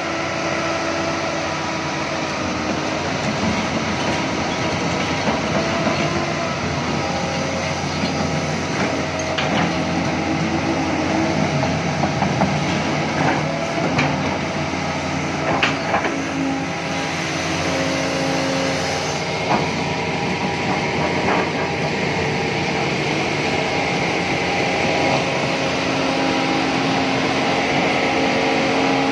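Doosan crawler excavator's diesel engine running steadily, with a few short metallic knocks.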